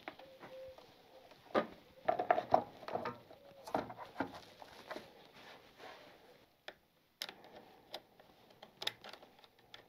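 Irregular clicks and knocks of a motorcycle battery being pushed into its compartment and its terminal screws done up with a screwdriver, busiest in the first half, with a few sharp clicks near the end.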